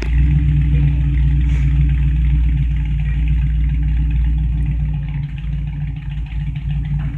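1961 Chevy Apache pickup's 307 small-block V8 running steadily at a fast idle, a little lower in the second half.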